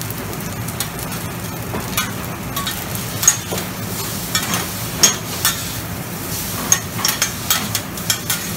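Noodles stir-frying on a Mongolian barbecue flat-top griddle: a steady sizzle under irregular sharp clacks and scrapes of steel spatulas on the hot steel plate. The clacks come thicker near the end.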